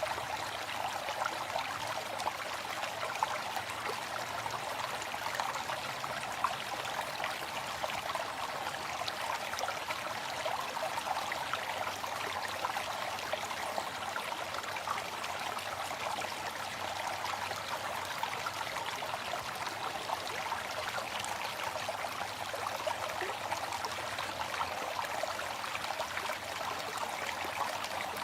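Waterfall splashing steadily, an even rush of falling water with small splashes through it and little deep rumble.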